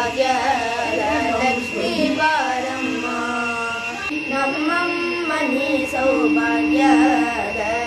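A Carnatic-style Kannada devotional song with a sung melody, playing as background music.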